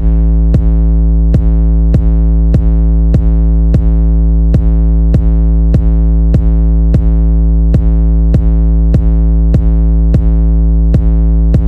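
Background electronic music: a held synthesizer chord over a steady beat, about three beats every two seconds.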